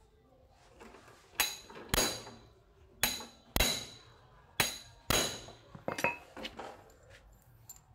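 A steel hammer strikes a hand impact screwdriver held against a screw in the motorcycle's engine case, to shock the tight screw loose. The blows come as three pairs of sharp metallic strikes, each with a short ring, followed near the end by a few lighter clinks.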